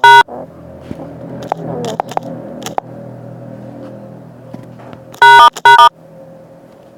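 Phone dialer keypad tones: one loud beep at the start and two more quick beeps a little after five seconds in, as a code is keyed in on an Android phone, over low background noise with a few faint clicks.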